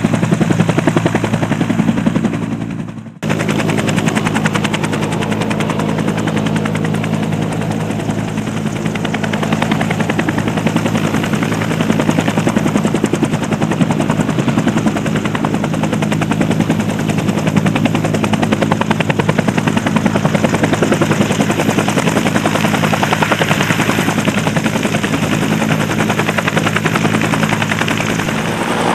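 AH-1S Cobra attack helicopter hovering low, its two-blade main rotor beating rapidly over the steady hum of its turbine. The sound dips and drops out briefly about three seconds in, then carries on unchanged.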